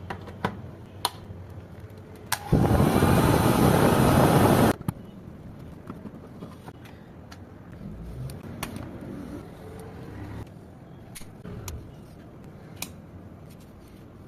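A hair dryer switched on and blowing for about two seconds, then cut off, with scattered clicks and knocks of the dryer being handled before and after.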